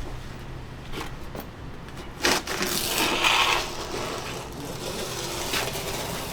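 Handling noises of work: a few knocks, the loudest a little over two seconds in, followed by about a second of scraping or rubbing.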